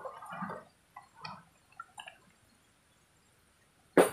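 Water glugging out of a plastic canteen into a metal cup, thinning to a few last drips about two seconds in. Near the end comes a single sharp knock as the canteen is set down on a wooden board.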